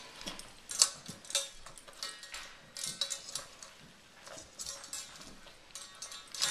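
A dog eating dry kibble from a stainless steel bowl: irregular clinks and rattles of kibble and muzzle against the metal, several a second, some with a short metallic ring.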